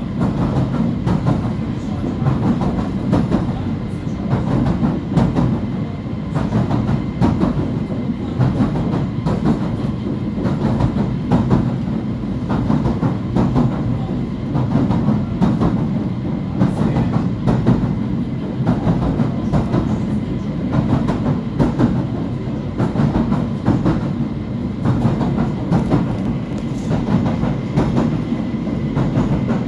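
Southend Pier's electric pier train running along the pier, heard from inside the carriage: a steady rumble of wheels on the track with frequent irregular clicks and knocks, and a faint steady whine.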